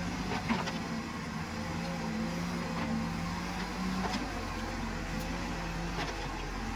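Escorts Digmax backhoe loader's diesel engine running steadily under load as the backhoe arm digs, with a wavering tone above it and a few short knocks from the bucket and arm, about half a second in, near the middle, and near the end.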